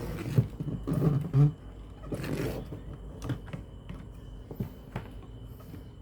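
Handling noises of hands-on repair work: a sharp click, then a few low knocks about a second in, rustling around two seconds, and scattered light ticks after, over a faint steady high whine.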